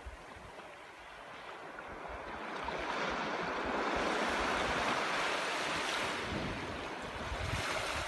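Small sea waves breaking and washing up a sandy beach: a hiss that swells over a couple of seconds, holds, and eases off near the end.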